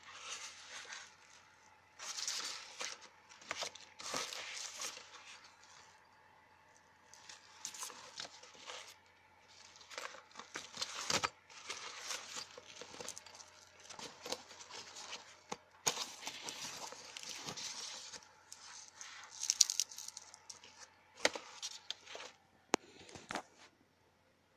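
Fabric waist bag rustling and crinkling as it is handled, in irregular bursts with short pauses and a few sharp clicks.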